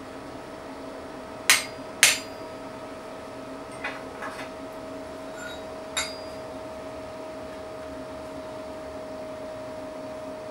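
Hammer blows on a hand-held chisel set against the steel workpiece on an anvil, marking out lines in the metal: two sharp, loud strikes about half a second apart, a few lighter taps a couple of seconds later, then one more strike. A faint steady tone lies underneath.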